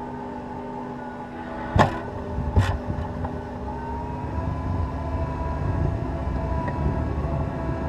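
Cat 236B skid steer's diesel engine running steadily, with two sharp bangs a little under a second apart about two seconds in; from about four seconds in the engine works harder and its pitch rises slightly as a heavier rumble builds.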